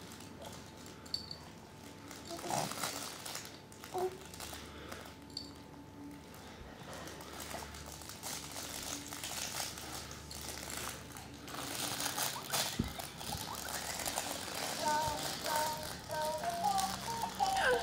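Soft rustling, crinkling and small rattles of fabric baby toys and a play-gym mat as a baby shifts about on all fours. About three-quarters of the way through, a simple tune of stepped notes begins.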